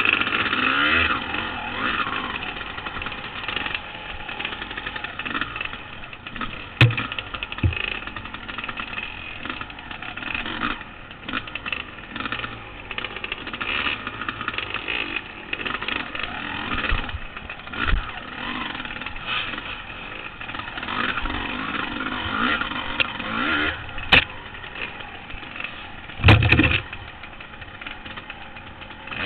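Honda CR250 two-stroke dirt bike engine, heard from a helmet-mounted camera, revving up and down at low speed along a rough trail. Several short knocks come through, the loudest a low thump near the end.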